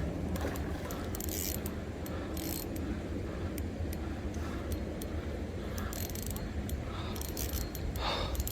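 Fishing reel being cranked with a big fish on the line, gears whirring under many irregular clicks.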